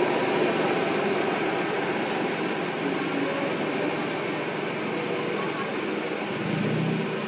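Steady road and engine noise from a moving car, heard from inside the cabin.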